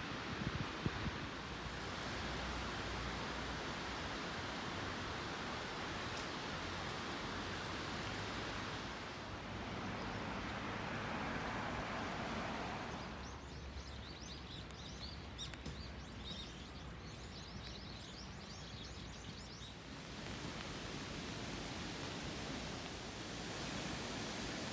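A steady rushing hiss of outdoor noise, with small birds chirping rapidly and busily for several seconds in the middle.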